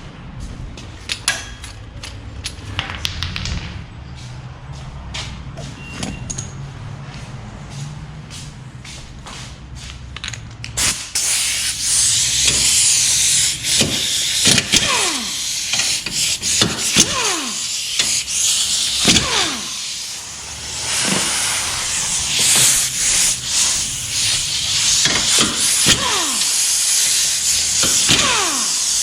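Scattered light clicks and knocks, then, about a third of the way in, a loud steady hiss starts and carries on, crossed by repeated falling whooshes.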